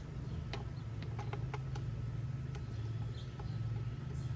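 A few light, sharp metal clicks and taps of bolts being handled and started by hand into a plastic cover during reassembly, over a steady low hum.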